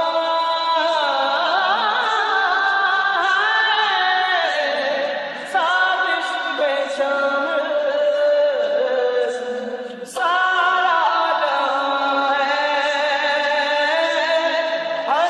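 Ringtone music: a solo voice sings long notes that bend and waver, with short breaks between phrases about five and ten seconds in.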